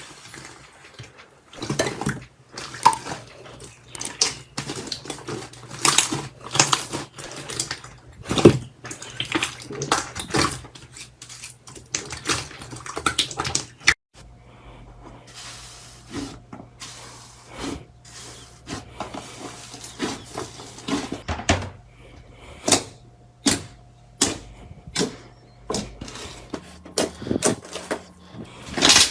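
Slime being squeezed, poked and stretched by hand, giving irregular sticky clicks, pops and crackles.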